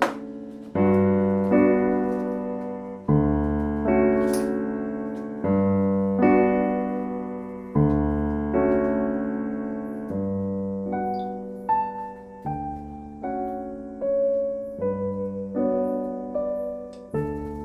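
Background piano music: slow chords and single notes that each ring out and fade before the next is struck.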